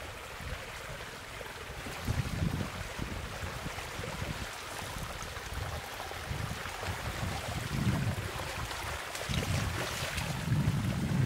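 Moving water, with wind buffeting the microphone in irregular low gusts.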